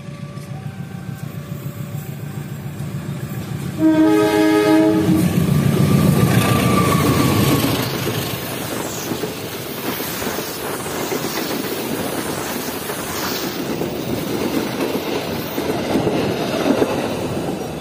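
Diesel-hauled passenger train approaching and passing close by. A rumble builds, then a single horn blast of about a second sounds about four seconds in, followed by the loud rumble and clickety-clack of the coaches rolling past.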